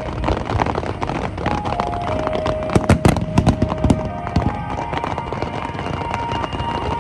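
Aerial fireworks bursting, with a quick cluster of bangs about three seconds in, over music with long held notes.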